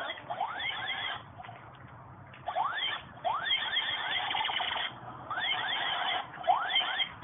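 Light-up toy bubble gun playing its electronic sound effect: quick repeated rising chirps in short runs that stop and start several times.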